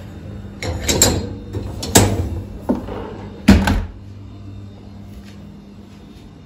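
A run of four sharp knocks and clatters over about three seconds, the loudest near the middle, over a steady low hum; then only the hum.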